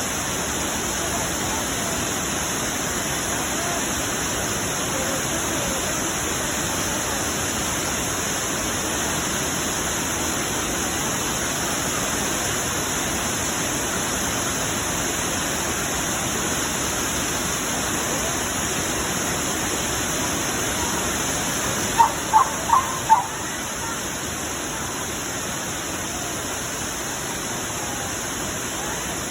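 Waterfall rushing steadily. About three-quarters of the way through, four quick high-pitched chirps sound close together over the rush.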